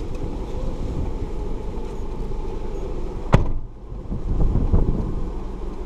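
Steady low rumble of a car, with one sharp knock a little over three seconds in, after which the noise dips briefly before picking up again.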